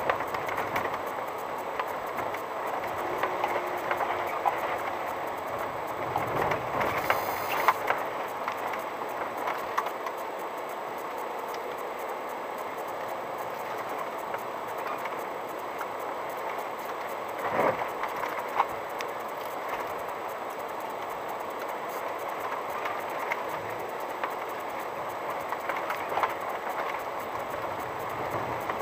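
VW T5 California van creeping along a rough unpaved track at walking pace: tyres crunching over loose gravel and stones, with many irregular clicks and a few louder knocks.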